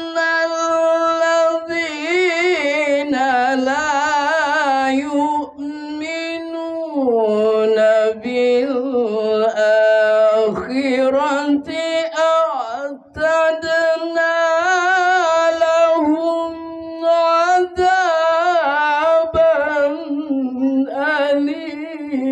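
A man reciting the Qur'an in melodic tajwid style into a handheld microphone. He holds long drawn-out notes with wavering ornaments and glides, pausing briefly for breath several times.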